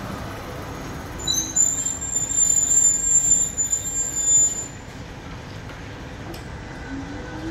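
Melbourne tram rolling slowly past with a steady low rumble. About a second in, a loud, high-pitched metal-on-metal squeal from its running gear starts, wavering in loudness for about three and a half seconds before it stops.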